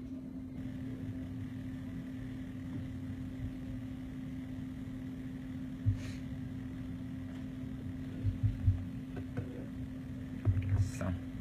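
Steady low electrical hum, with a few dull knocks about six seconds in, a cluster of them past eight seconds, and more near the end along with light clicks.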